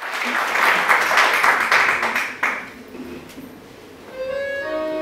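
A live stage band starts playing about four seconds in, with long held notes. Before that, a loud burst of dense, crackling noise from the room fades out after about two and a half seconds.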